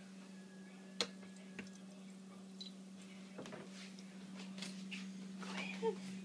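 Quiet handling at a kitchen sink just after the tap is shut off: a sharp click about a second in, then a few soft knocks as a glass measuring cup of water is carried. A steady low hum runs underneath.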